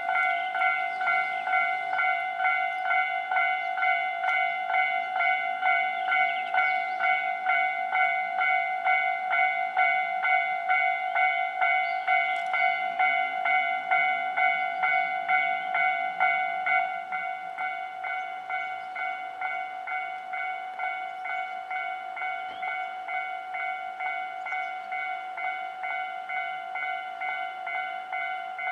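Japanese railway level-crossing alarm sounding its electronic bell over and over, about two strikes a second, dropping somewhat in loudness about two-thirds of the way through.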